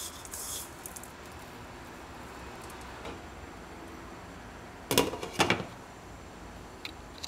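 Glass lid set down on a nonstick frying pan: two sharp knocking clatters about half a second apart, about five seconds in, over a faint steady background hiss.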